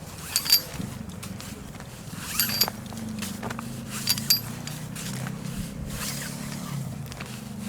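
Metal climbing gear clinking, carabiners knocking together with a bright ring three times, with rope rasping through the gear as a rappel is set up from a single anchor point. A steady low rumble runs underneath.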